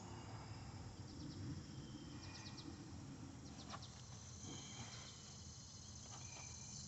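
Faint outdoor background with small birds chirping in several short, rapid runs of high notes, over a low steady hum.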